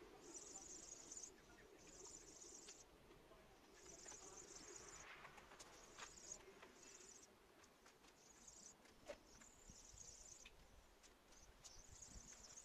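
Faint insect trilling in short high bursts, each under a second, coming and going irregularly, with a few light ticks; otherwise near silence.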